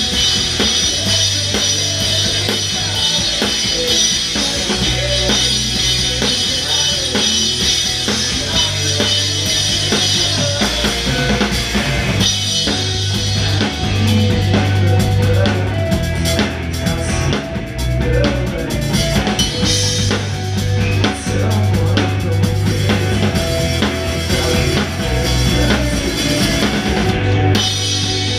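Ludwig drum kit played live in an alternative/post-hardcore rock band: kick, snare and a constant wash of cymbals, heard close up over the rest of the band's low, held notes.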